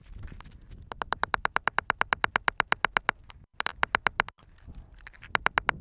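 Hand ratchet wrench clicking rapidly and evenly, about ten clicks a second, in runs that break off twice and end with a few last clicks.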